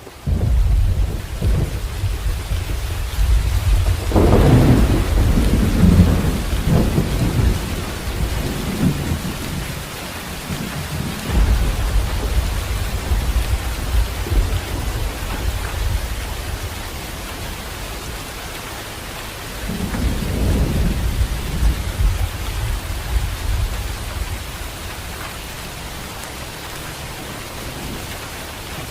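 Steady rain with rolling thunder: deep rumbles swell about four seconds in, again around twelve seconds, and once more around twenty seconds, then ease off into steady rain.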